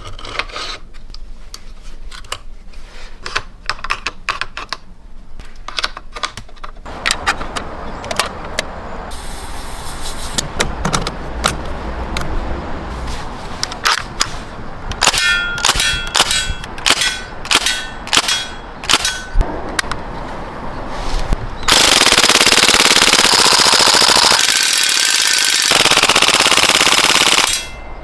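VFC PPSh-41 airsoft submachine gun firing: scattered clicks and single shots, some with a short ring, then one long full-auto burst of about five seconds near the end.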